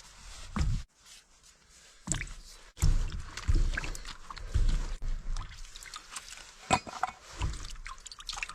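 Camp-cooking handling sounds: irregular knocks, clatter and rustling as food and utensils are moved, with some water sloshing.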